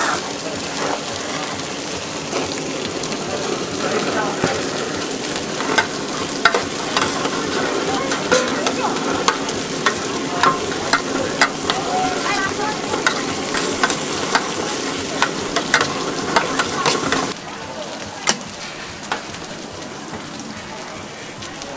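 Food sizzling on a hot griddle, with a spatula or tongs clicking and scraping against the metal many times. It gets quieter for the last few seconds.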